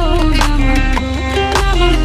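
Background music: an instrumental passage of a Bengali folk wedding song, a melodic lead line over a steady beat and bass.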